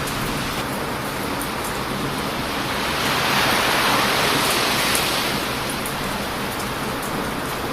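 Heavy ocean surf breaking on a beach, a steady rushing wash with one wave swelling louder about three seconds in and easing off after about five seconds. Faint small crackles of a burning wood campfire sound over it.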